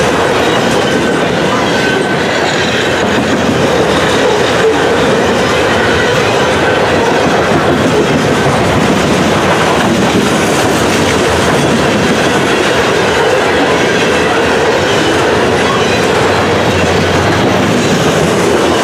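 Covered grain hopper cars of a freight train rolling past close by: a steady, loud noise of steel wheels running over the rails.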